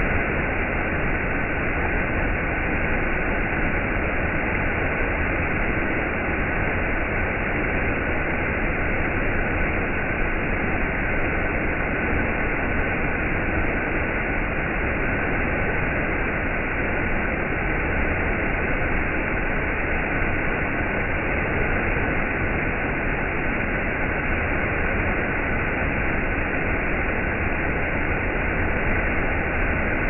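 Waterfall pouring down a rock cliff: a steady, even rushing of falling water, dull and muffled with no high end.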